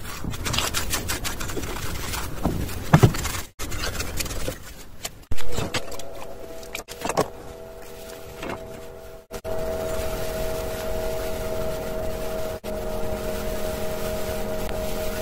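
Knocks and scrapes of hands and a paintbrush working paint over a cement sculpture. About halfway through, a steady hum of several held tones takes over and runs on, with a lower tone joining a few seconds later.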